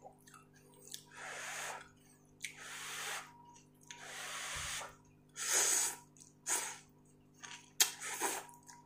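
About six short, airy bursts of a person eating hot spicy ramen noodles off chopsticks, blowing on them to cool them and slurping them in.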